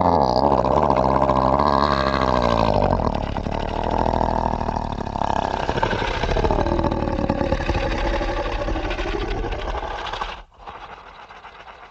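A monster's growling sound effect: a long, rumbling growl whose pitch wavers up and down, cutting off suddenly about ten seconds in and leaving only a faint background.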